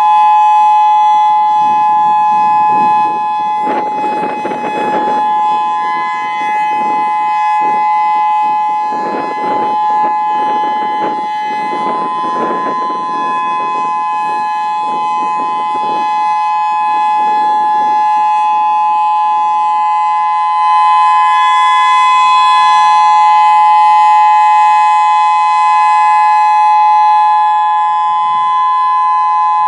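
Federal Signal EOWS 612 electronic outdoor warning siren sounding its steady Alert signal: a loud two-tone blare held at one pitch, with bursts of noise over it in the first half.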